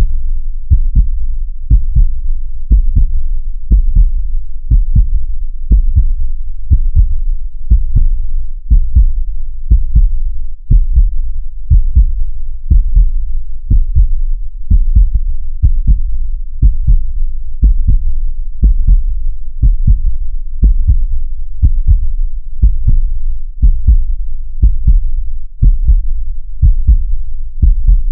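Designed heartbeat sound effect: deep low thumps in a steady rhythm of about one beat a second.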